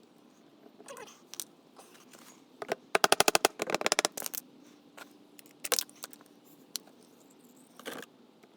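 Metal hand tools clinking and knocking during a motorcycle engine strip-down. About three seconds in there is a short, fast run of evenly spaced sharp clicks, about twenty a second, the loudest part, then a second cluster of clicks.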